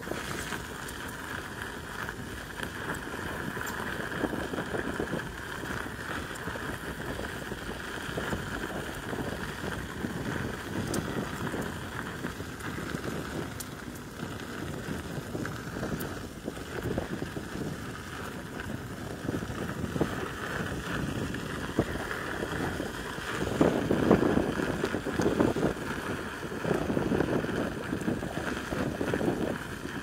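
Electric unicycle rolling along a gravel trail: steady tyre noise on the gravel with wind buffeting the microphone, the buffeting heavier in the last several seconds.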